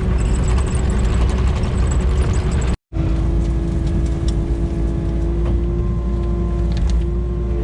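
Diesel engine of a Kubota KX080 excavator running steadily. The sound drops out for an instant about three seconds in at an edit, then resumes as a steadier engine hum.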